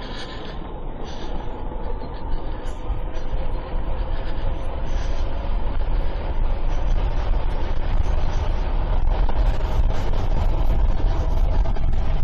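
A 60-volt e-bike's electric motor whining under hard acceleration on a top-speed run. Its pitch climbs a little at first, then holds, under a steadily growing rush of wind noise on the microphone.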